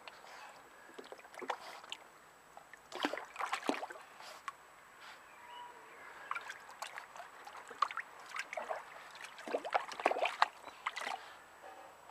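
Small dog splashing in the shallow water of a plastic paddling pool, in irregular bursts of sloshing that are loudest about three seconds in and again around ten seconds in.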